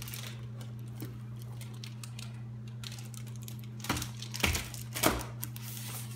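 A picture book being handled: a few quick knocks and page rustles about four seconds in as the book comes down onto a table and a page is turned, over a steady low hum.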